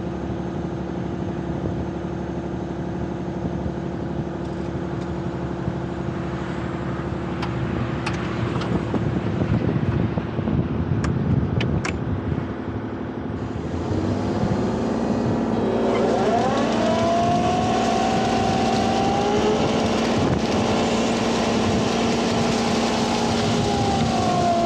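Kubota U35-4 mini excavator's three-cylinder diesel running steadily, with a few light clicks. About 14 seconds in it gets louder and a whine rises in pitch and holds as the hydraulic brush cutter is brought up to speed for mowing.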